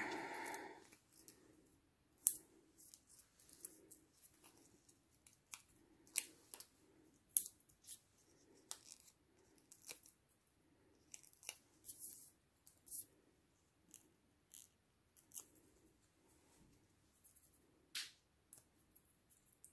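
Foam adhesive dots (dimensionals) being peeled off their plastic backing sheet and pressed onto a stamped paper flower: a string of small, irregular crisp clicks and snaps of plastic and paper handling.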